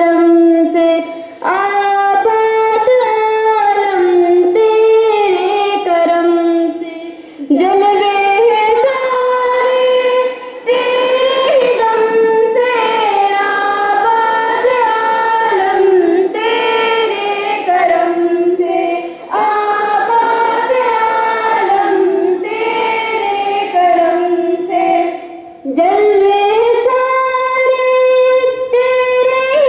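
Voices singing an assembly song together in unison, a slow melody of long held notes in phrases of several seconds, with short breaks for breath between phrases.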